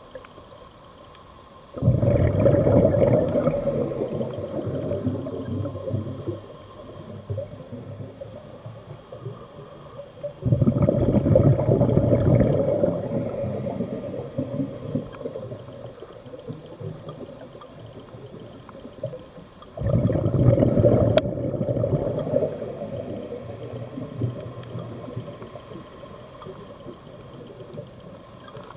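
Scuba diver breathing through a regulator underwater: three long bursts of exhaled bubbles about nine seconds apart, each starting suddenly and fading.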